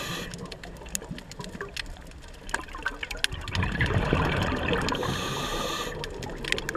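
Underwater sound recorded on a scuba dive: gurgling and bubbling water with a low rumble and many scattered sharp clicks, and a louder hissing stretch a little after five seconds in.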